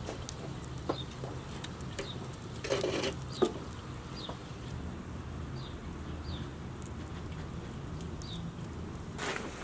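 Wood fire crackling, with scattered small pops and snaps and a louder cluster of crackles about three seconds in. Short, high, falling bird chirps sound now and then.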